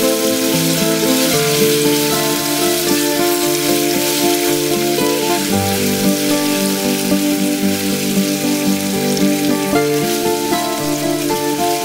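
Steady sizzling hiss from sugar cooking into caramel in a small pan, under background music with a slow melody.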